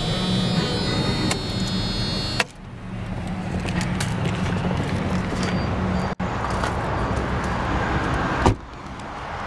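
Car radio music in the cabin of a 1987 Mercedes-Benz 560SL cuts off abruptly with a click about two and a half seconds in as the ignition is switched off. A steady low hum carries on, and a car door shuts with a thud near the end.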